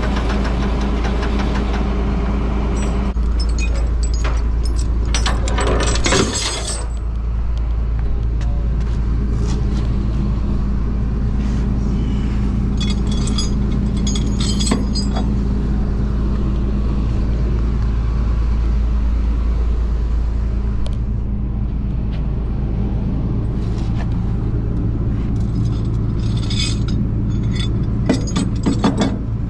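Rollback tow truck's engine running steadily, with bursts of metal clinking and rattling from tow chains and hooks a few seconds in, around the middle and near the end.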